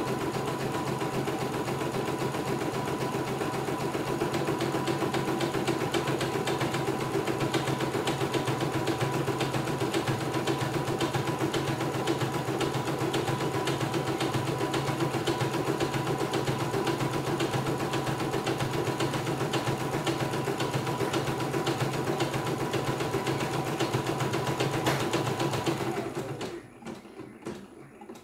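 CNY E900 computerized embroidery machine stitching at speed: a steady rapid needle clatter over the hum of its motor. The stitching stops about two seconds before the end, leaving a few softer clicks.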